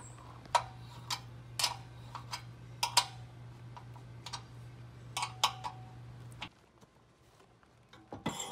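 A hand wrench turning a self-drilling screw into a steel trailer frame, the drill's battery having died: sharp metallic clicks at irregular intervals, roughly one or two a second, with a low steady hum behind that stops about two-thirds of the way in. A brief scraping rub near the end.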